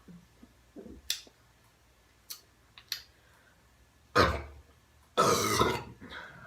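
A woman belching twice: a short belch about four seconds in and a longer one about a second later. A few faint clicks come before them.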